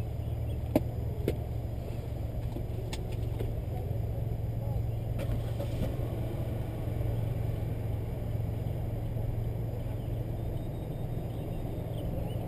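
Car engine idling while stopped, a steady low hum, with two sharp clicks about a second in.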